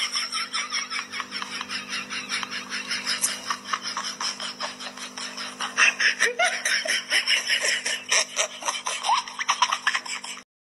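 A person laughing in quick, breathy pulses, several a second, over a steady low hum, stopping suddenly near the end.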